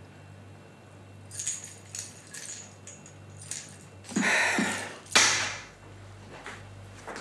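Rustling of a bag being handled and picked up, then a set of keys jangling and clattering down onto a counter a little after five seconds in.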